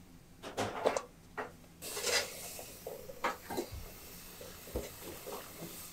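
A few clinks of a metal bowl, then about two seconds in tap water starts running into a metal bowl of peeled garlic cloves being rinsed, with knocks and clinks of the bowl throughout.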